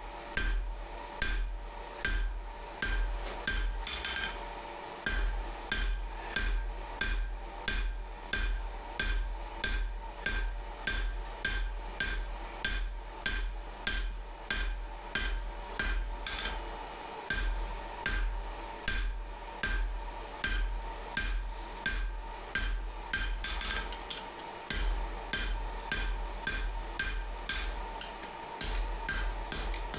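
Hand hammer striking hot steel on an anvil, about two blows a second with a short metallic ring on each, in runs broken by a few brief pauses while forging split-bar tongs. A steady hum runs underneath.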